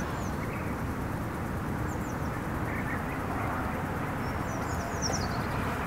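Outdoor woodland ambience: a steady low rumble, with a few faint, high, short bird chirps, once near the start, again about two seconds in, and a small flurry about five seconds in.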